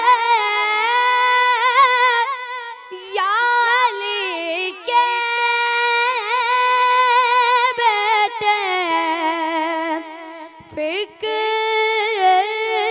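A boy's high voice singing a manqabat, an Urdu devotional praise poem, without instruments. He holds long notes with wavering ornaments, with short pauses between phrases.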